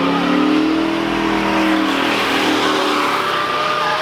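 Car engine revving hard and held at high rpm, its pitch climbing slightly and then easing down in the second half, over a loud hissing rush.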